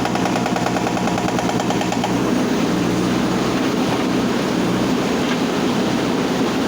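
Backhoe loader's hydraulic breaker hammering rapidly on river stone, stopping about two seconds in, while the machine's diesel engine runs steadily underneath.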